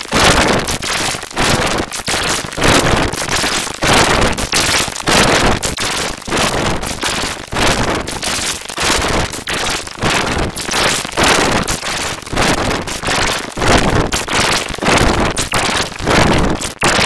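Harsh, heavily distorted crackling noise that surges and drops several times a second: a cartoon logo's soundtrack mangled beyond recognition by sped-up and reversed editing effects.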